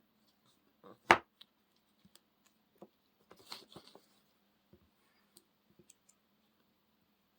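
Scattered small clicks and taps of hands working with small hard parts, with one sharper knock about a second in and a short run of clicks and scrapes in the middle, over a faint steady hum.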